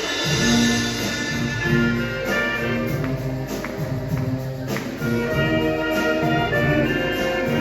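Marching showband playing a medley of 1970s Manila Sound pop songs live, brass holding melody notes over a steady band beat.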